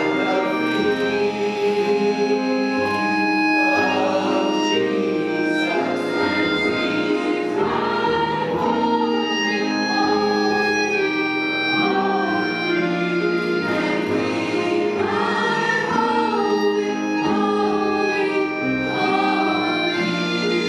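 A large mixed choir singing in several parts, with instruments accompanying.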